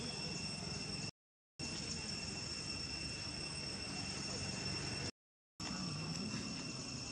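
Steady, high-pitched drone of insects over a low outdoor hiss, broken twice by a sudden half-second dropout to total silence, about a second in and about five seconds in.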